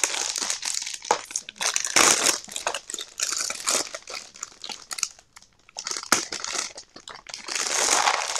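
Clear plastic packaging bag crinkling as it is pulled and handled around a boxed set of small plastic containers, in irregular bursts with a brief lull about five seconds in and a louder stretch near the end.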